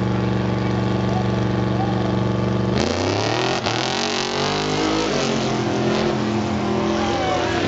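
Trophy truck's race engine running steadily at the start line, then opening to full throttle about three seconds in as the truck launches, its pitch rising and falling as it pulls away down the dirt course.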